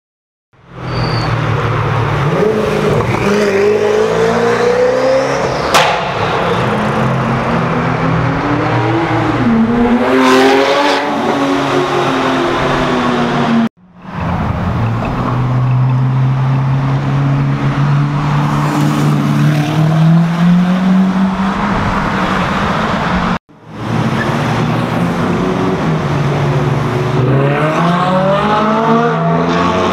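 High-performance car engines revving and accelerating in a tunnel, their pitch climbing and dropping again several times, in three clips that cut off abruptly twice. One sharp crack about six seconds in.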